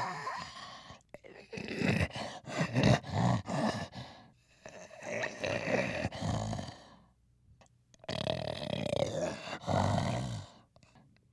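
Gorilla breathing heavily with rough grunts and huffs, coming in runs with a short pause about two-thirds of the way through.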